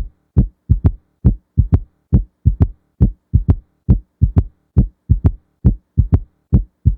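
Heart sounds with a third heart sound (S3 gallop) in the 'Kentucky' rhythm. Each cycle is three low thumps: S1, then S2 followed closely by S3 in early diastole, repeating steadily a little over once a second.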